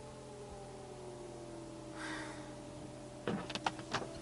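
Distant air-raid siren, faint, its tone slowly falling in pitch as it winds down, heard from inside a car, with a few sharp clicks and knocks in the car near the end.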